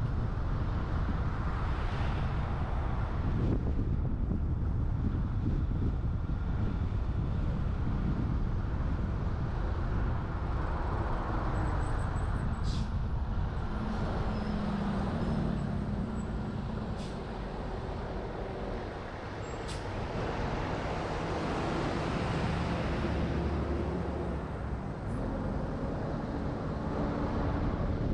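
Wind rushing over a roof-mounted GoPro on a moving truck, over a steady low rumble of road and engine noise. A few sharp ticks come near the middle.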